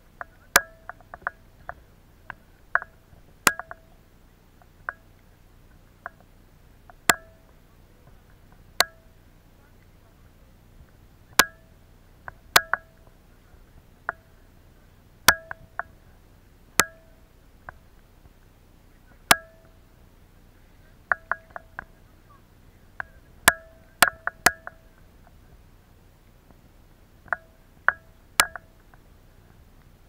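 Raindrops striking a waterproof action-camera housing: irregular sharp plinks, each with a brief ringing tone, some coming in quick clusters, over a faint steady low background.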